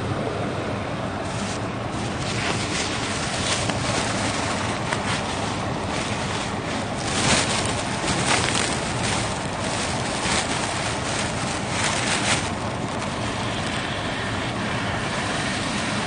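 Wind buffeting the microphone over the wash of waves on the shore, with surges of louder hiss as the surf washes in, between about a second and a half in and twelve seconds in.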